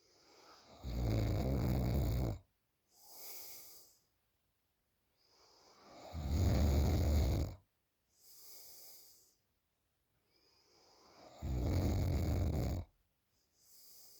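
A sleeping woman snoring: three loud, low snores about five seconds apart, each followed by a shorter, softer breath.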